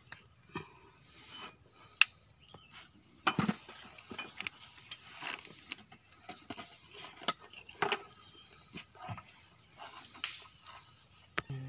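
Scattered clicks, taps and rubbing of hands working a new seal onto the steel piston of a Komatsu PC200 excavator's boom cylinder. The sharpest clicks come about two seconds in and again a little after three seconds.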